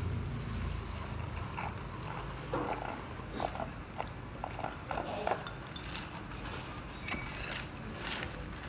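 Steady low hum of a small eatery with scattered light clicks and clinks of tableware, a few sharper ones near the end.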